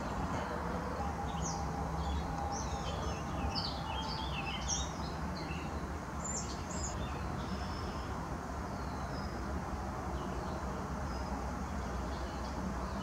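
Wild birds chirping and calling in short, varied high notes, busiest in the first half, over a steady low background rumble.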